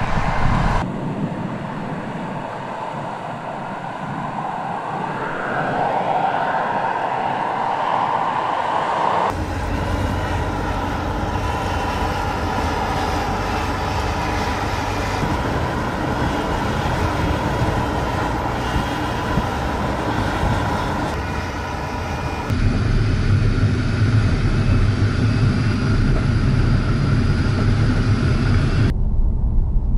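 Opel Mokka X compact SUV driving: engine and tyre noise on a narrow road. It comes in several takes that change abruptly. The level rises over the first several seconds, holds steady through the middle, and becomes a louder, deeper rumble in the last several seconds.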